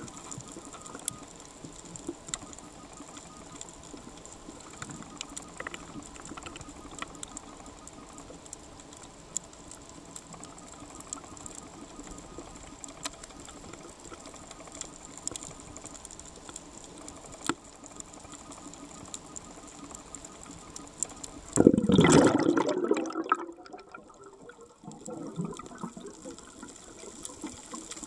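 Underwater ambience: a steady low hiss with scattered faint clicks. About 22 seconds in comes a loud rush of bubbles lasting about two seconds, a scuba diver exhaling through the regulator.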